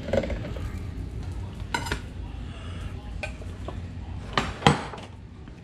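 A metal utensil knocking and scraping against a frying pan and dishes, with a few sharp clinks, the loudest two about four and a half seconds in.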